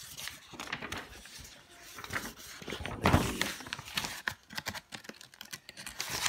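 Pages of a paper instruction booklet being handled and turned: irregular rustling and crinkling, with one louder thump about three seconds in.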